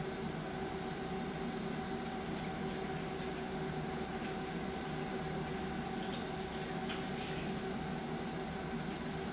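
Steady rush of water running through a hose into a tall film developing tank, under a low, even hum, with a few faint light clicks.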